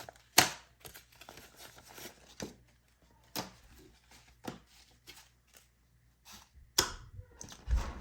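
Paper bills and envelopes being handled: a string of sharp snaps and rustles about once a second, with a louder low rumble coming in near the end.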